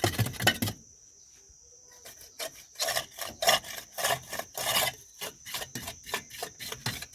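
Steel plastering float rubbed back and forth over wet plaster on a wall, smoothing it: quick, repeated scraping strokes that pause for about a second early on and then resume.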